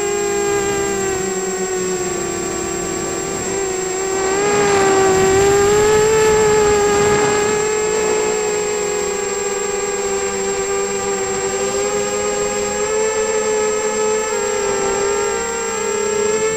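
Hobby King FPV260 quadcopter's brushless motors and propellers in flight, heard from its onboard camera. It is a steady whine of several motors at slightly different pitches, which swells louder around five seconds in.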